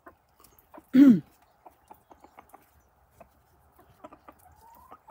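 Domestic chickens in their run: one loud, short call falling in pitch about a second in, then quiet clucks and small scattered clicks, with a soft rising note near the end.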